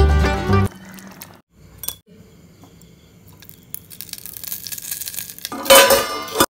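Fat spooned onto a hot lump of charcoal in a small bowl set in the curry sizzles and crackles, growing louder, with a loud burst near the end; this is the coal-smoking (dhungar) step that gives the dish its smoky flavour. Background music stops within the first second.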